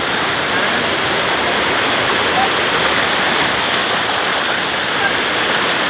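Fast-flowing river water rushing steadily, a loud even roar of churning current.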